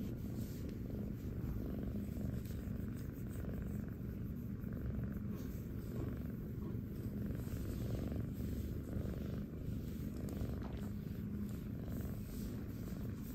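Tabby kitten purring steadily and without break while being stroked and tickled on the belly.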